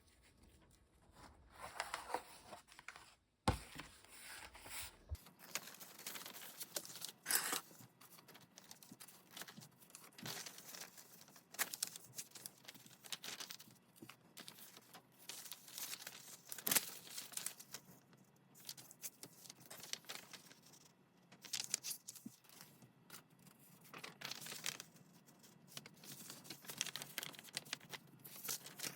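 Paper being torn and crinkled by hand: irregular rustling strips and sharp rips.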